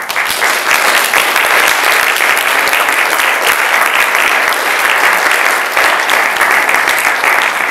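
Audience applauding, starting abruptly and holding steady throughout.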